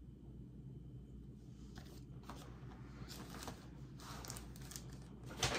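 Plastic bag rustling and crinkling in short irregular bursts as groceries are handled, starting about a second in, with a louder crinkle near the end.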